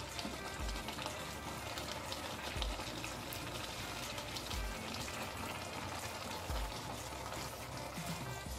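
Thick spinach soup sizzling steadily in a stainless steel pot, a spoon stirring through the greens.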